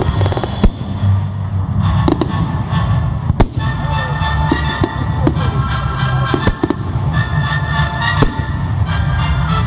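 Fireworks display: repeated bangs and crackling bursts, the sharpest about half a second in and again about three and a half seconds in, over music played through loudspeakers.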